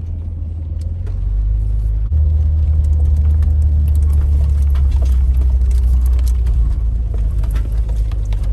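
Jeep driving over a rough dirt track: a heavy low rumble with scattered knocks and rattles, the rumble getting louder about two seconds in.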